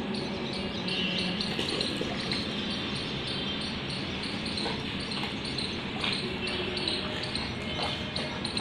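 Steady hiss of water spraying from a garden hose, with a few faint knocks about five, six and eight seconds in.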